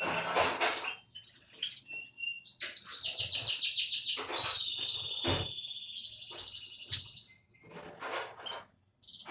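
Java sparrow singing: scattered high chirps and clicks, a fast run of repeated high notes about two and a half seconds in, then a long wavering high trill lasting nearly three seconds. Short rustling noises near the start and again near the end.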